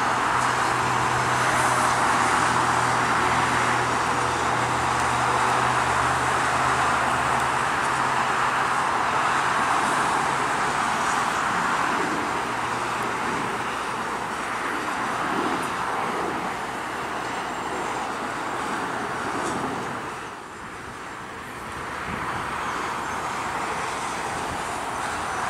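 Steady roar of jet engines from airliners taxiing, with a low hum that fades out about eight seconds in and a short dip in level about twenty seconds in.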